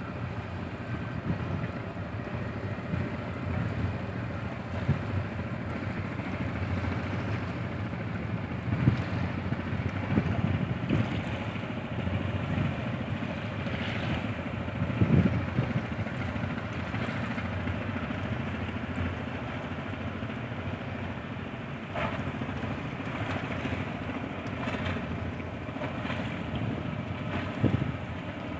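Wind buffeting the microphone over a steady low rumble from the idling engines of the passenger ship KL Laksamana Malahayati at its berth, with irregular gusts.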